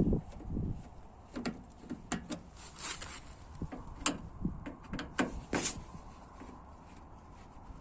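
Clicks, knocks and two short scrapes of a washing machine's top cover being worked loose and removed, with the sharpest sounds in the first six seconds and quieter handling near the end.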